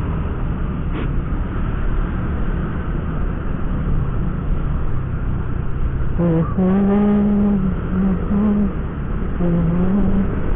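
Steady wind and road rumble on the microphone of a Honda Vario 125 scooter riding through town traffic. About six seconds in, a held, pitched tone comes in. It breaks a few times and bends slightly, for about three and a half seconds.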